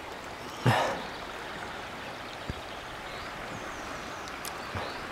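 Steady rush of the Rhône's current flowing over a shallow gravel bed. Under a second in, a short voice sound stands out briefly above it.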